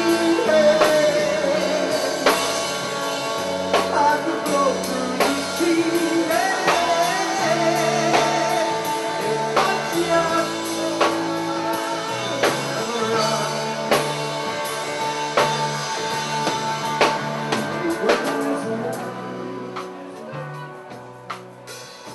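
Rock band playing live: a male lead vocal over guitar and drums, with a steady beat. The music fades down over the last few seconds.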